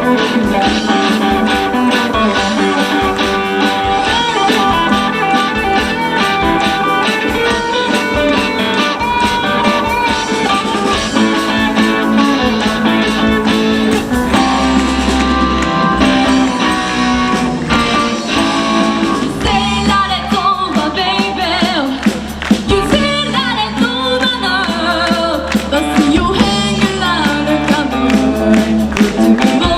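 Live band music: guitars and drums playing a rock-style song with a singing voice over them.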